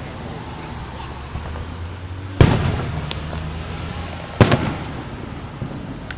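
Two loud aerial firework shell bursts about two seconds apart, each a sharp bang followed by a rolling low rumble, with a smaller crack near the end.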